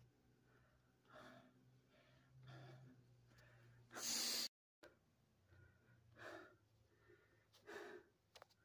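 Faint breathing of a man, soft breaths about every second. About four seconds in there is one brief loud noise burst, and the sound cuts out completely for a moment.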